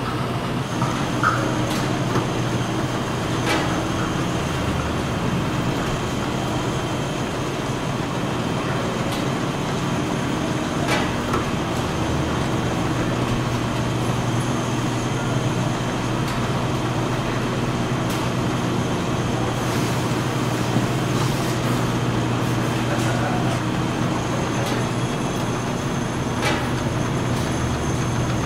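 Factory machinery running steadily: a low hum with a faint high whine above it and a few light clicks and clacks scattered through.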